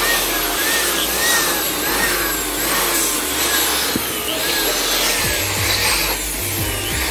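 Repeated rubbing or scrubbing strokes of cleaning a dirty audio component, over background music with a stepping bass line.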